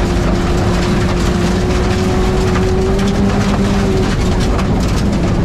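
Touring race car's engine running hard at high revs, heard from inside the cockpit over loud road and wind noise. Its pitch holds steady, creeping up slightly, then drops a little about four seconds in.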